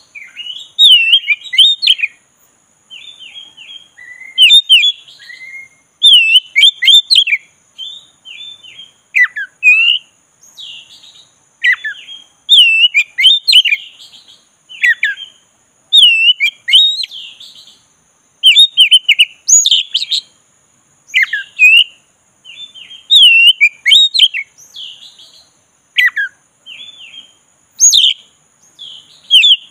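Black-breasted Oriental magpie-robin singing: short phrases of varied whistled notes that swoop up and down, with brief pauses between phrases.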